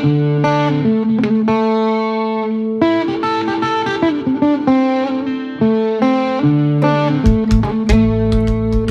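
Background music: electric guitar playing held, chiming notes, with bass and drum hits coming in during the last couple of seconds.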